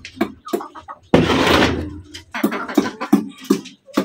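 Chickens in a wire cage that is being handled: a string of short knocks and clicks, a burst of rustling about a second in, and a few short clucks in the second half.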